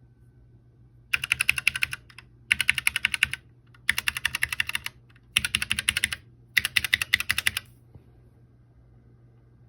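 Gaming keyboard being typed on fast, in five runs of rapid key clicks about a second long each, starting about a second in and stopping near eight seconds.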